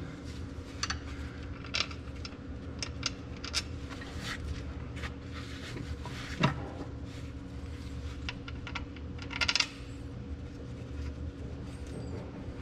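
Scattered light metal clinks and taps of brake parts being handled and fitted at a tractor's brake housing, with one sharper click about halfway through and a short rattle about three quarters of the way in, over a steady low hum.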